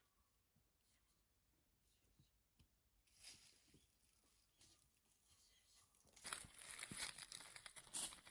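Near silence, then from about six seconds in a faint rustling and crinkling with light clicks, as of something being handled.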